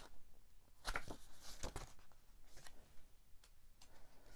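Faint rustling of paper as the pages of a perfect-bound paperback book are handled and flipped through. A few soft brushes come about one to two seconds in, with lighter ones later.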